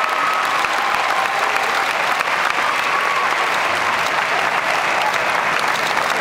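Audience applauding steadily, a dense, even clapping.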